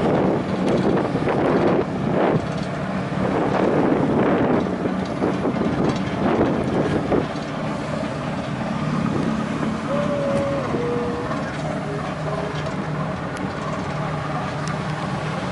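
Ship's engine droning steadily, heard on the open deck, with wind buffeting the microphone in gusts through the first half. About ten seconds in, a brief tone steps down in pitch.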